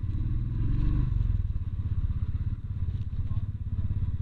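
Motorcycle engine running steadily while riding, a low pulsing drone picked up by an action camera's external microphone; the engine note eases slightly about a second in.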